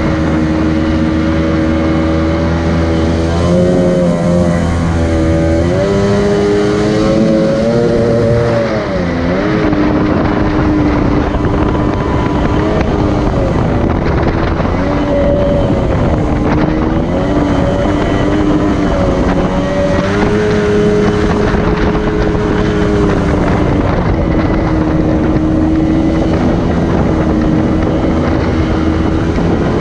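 Jet-drive outboard motor on an aluminium jon boat running under way, its engine pitch dipping and climbing back several times as the boat runs the river.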